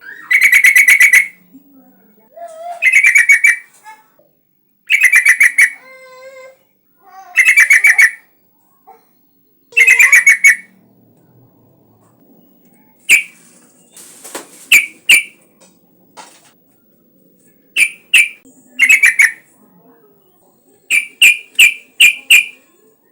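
Yellow-vented bulbul (trucukan) calling: loud, rapid bubbling phrases about a second long, repeated about every two seconds. After that come short sharp single notes, ending with a quick run of five notes.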